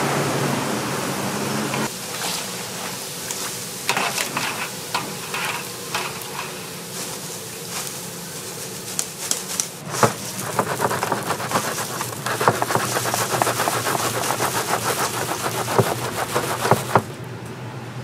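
Glutinous-rice donut balls sizzling as they deep-fry in hot oil, with a wire mesh strainer clinking and scraping against the metal pot. From about ten seconds in comes a fast run of light clicks and taps as the balls are scooped out and rattle in the strainer.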